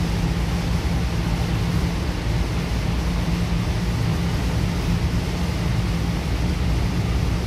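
Interior running noise of a Goninan K-set double-deck electric train in motion: a steady low rumble of wheels on rail and running gear, heard from inside the upper-deck saloon.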